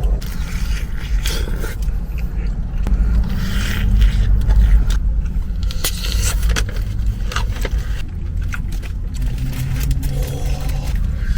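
Repeated scraping and clicking from handling food and kitchenware, over a steady low rumble.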